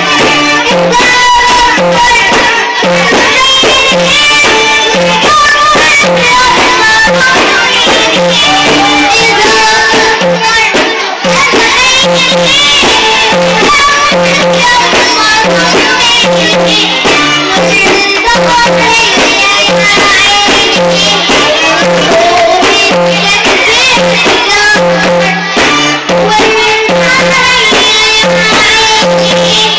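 A girl singing an Arabic song over loud instrumental accompaniment with a repeating bass beat.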